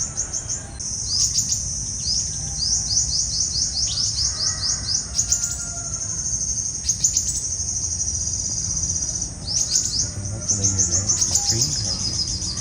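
Sunbirds calling: rapid runs of high, sharp chirps, each dropping quickly in pitch, with a short break about nine and a half seconds in.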